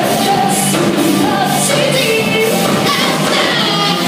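A rock band playing live, with a sung lead vocal over electric guitar and a drum kit, loud and steady.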